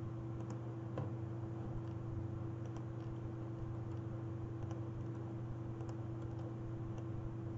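A few faint, scattered computer mouse clicks over a steady electrical hum from the recording setup.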